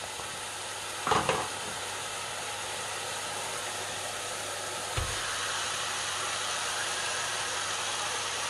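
Steady hissing sizzle of food frying in a hot pan, with a knock about a second in and a softer thump about five seconds in.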